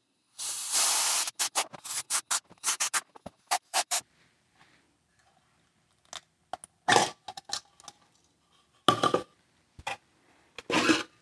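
Compressed-air blow gun hissing, first in a blast of about a second, then in a quick run of short puffs, as air is forced between set plaster and a 3D-printed plastic form to break it free. Later come a few short scraping rubs as the plastic print is twisted against the plaster mold.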